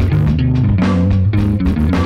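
Monoprice Indio Classic electric guitar picked in a steady rhythm in a rock jam, with a bass line underneath.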